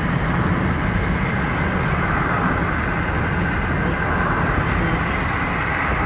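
Steady road and engine noise of a car driving, heard from inside the cabin: an even low rumble with tyre hiss that does not change.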